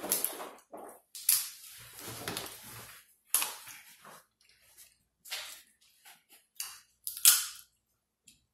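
Crab and shrimp shells cracked and snapped open by hand: a string of sharp cracks and crunches, the loudest near the end.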